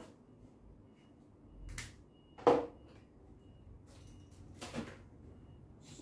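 Parts and tools being handled: a brief scrape, then a sharp knock about two and a half seconds in, the loudest sound, and a softer knock near the end.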